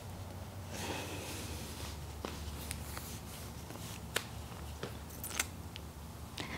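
Soft fabric rustling as a knee-high cotton sock is pulled on over the foot and leg, with scattered small clicks and a faint low hum underneath.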